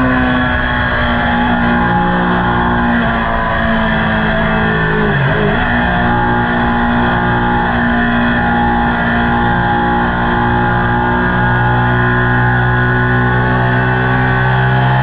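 Ducati Panigale superbike engine and exhaust, likely a Termignoni, running steadily at cruising revs while riding. About five seconds in, the revs dip briefly and pick back up.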